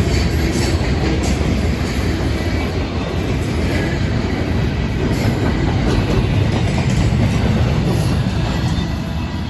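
Florida East Coast Railway freight cars rolling past close by: a steady, loud rumble of steel wheels on rail with occasional clacks over rail joints, easing slightly near the end.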